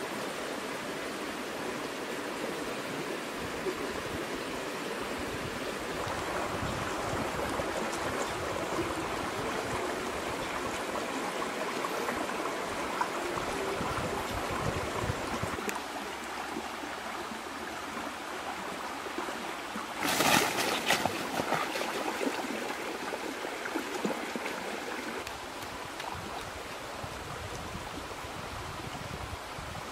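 Shallow rocky stream running over stones: a steady rush of flowing water, with one short, louder burst of noise about two-thirds of the way through.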